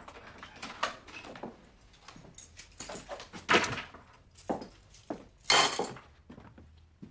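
Door, footsteps and rustling as someone comes into a quiet room: a run of small clicks and knocks, with two louder rustling swishes, one near the middle and one about two-thirds of the way in.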